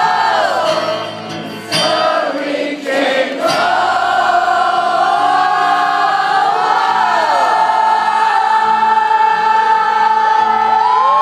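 Live rock concert music with many voices singing a long wordless melody together, the level dipping briefly a second or two in.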